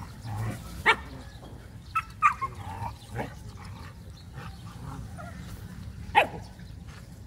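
Dogs barking and yipping: about half a dozen short, sharp barks, the loudest about a second in and another near the end.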